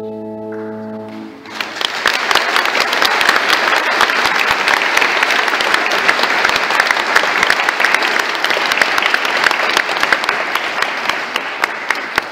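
A held final chord of steady notes stops about a second and a half in, and the congregation breaks into sustained applause, which thins near the end.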